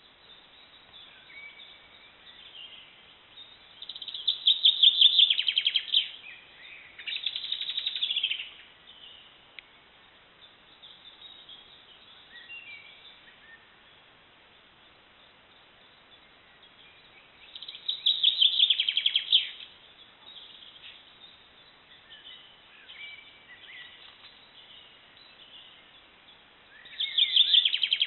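Forest birdsong: a songbird sings loud, fast trilled phrases about two seconds long, a few times, roughly ten seconds apart. Fainter chirps and calls of other birds fill the gaps.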